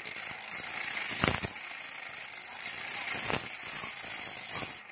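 Steel bolo blade being ground and polished on a pedal-driven grinding wheel, a steady high grinding hiss that swells louder three times.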